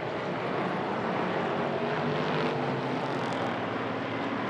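Hobby stock race cars' engines running at speed around the oval track, a steady drone that swells briefly about two seconds in.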